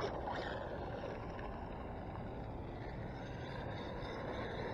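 Tamiya FF-03 electric RC car's motor whining as the car speeds off across asphalt. A sharp click opens it, and the whine falls in pitch over the first second. A fainter whine comes back after about three seconds, all over a steady hiss.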